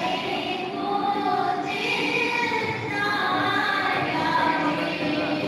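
A group of voices singing together in chorus, holding long notes.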